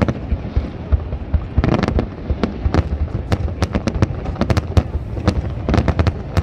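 Aerial fireworks display: shells bursting in many sharp bangs and crackles in quick, irregular succession over a steady low rumble.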